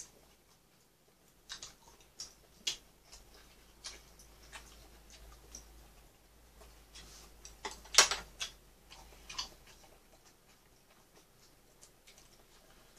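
Chopsticks and a spoon clicking and tapping against plates and bowls while someone eats, in irregular small clicks, with one sharper clack about eight seconds in.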